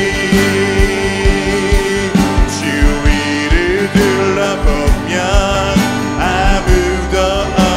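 Live worship band playing a praise song, with a steady drum beat and electric guitar, and a singer carrying the melody.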